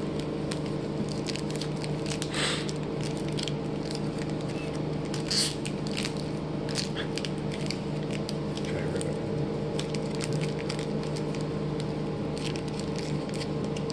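A plastic trading-card pack wrapper being worked open by hand, crinkling and crackling in many small irregular bursts, with two louder tearing sounds about two and five seconds in. A steady low hum runs underneath.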